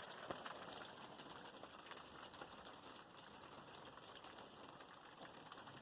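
Near silence with faint, scattered ticks of snow and hail pellets falling and hitting surfaces, one slightly louder tick a moment in.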